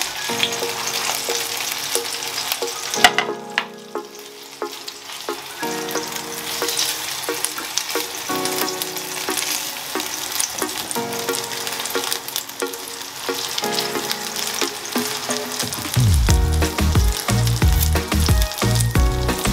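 Mashed-potato-and-cheese tacos frying in a hot nonstick pan, with cheese oozing out: a steady sizzle with the scrapes and taps of a spatula pressing and turning them. A sharp knock comes about three seconds in, and the sizzle briefly quietens after it. Background music with a low beat comes in near the end.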